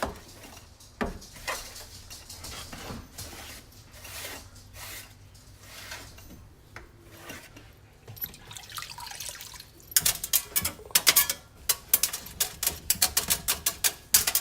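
Damp sponge wiping a microwave door, with soft, irregular swishes at first; about ten seconds in it turns to quick, hard scrubbing strokes, several a second.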